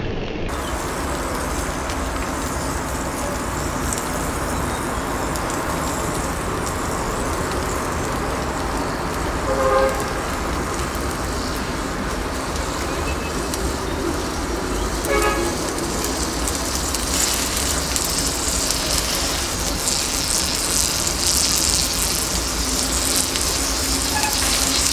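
Thousands of matchsticks burning in large open flames under a pan of potato fries: a steady rush of fire whose hiss grows stronger in the second half. Two brief pitched calls sound over it, about ten and fifteen seconds in.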